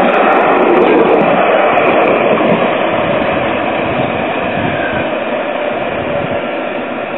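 Five-section Alstom Citadis tram rolling past and drawing away along the track, its noise fading steadily from about two and a half seconds in.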